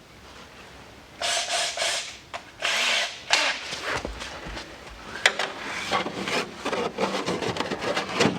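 Power drill running in short bursts to drill a small pilot hole, with two brief whining runs about 1 and 3 seconds in, then a longer stretch of continuous drilling from about halfway through.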